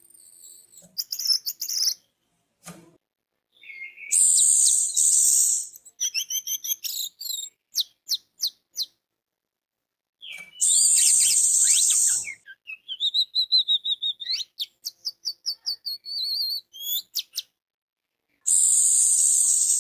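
Orange-headed thrush (anis merah) singing: dense, rich song phrases three times, with runs of quick repeated notes and a wavering trill between them, broken by short pauses.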